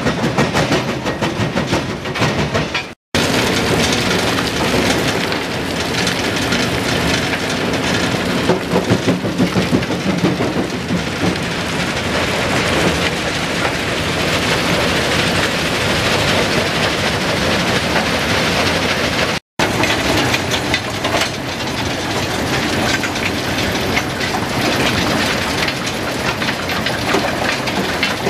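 Kue-Ken rock crushing plant running: rock clattering through steel feeders and along conveyors over a steady mechanical drone. The sound cuts out briefly twice.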